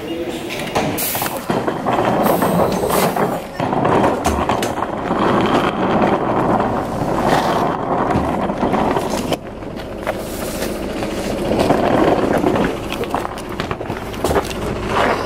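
Busy bus-terminal ambience: indistinct voices of other people over the low rumble of buses running.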